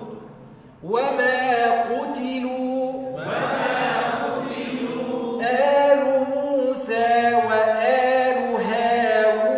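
Chanted Quranic recitation in Arabic, phrases intoned with long drawn-out vowels as in tajweed practice. It starts about a second in after a short pause.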